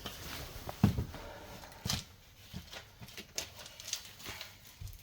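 Irregular knocks and clicks of hand tools and parts during work on the car's front suspension, as the shock absorber is unbolted from above. The loudest knocks come about a second in and again near two seconds in.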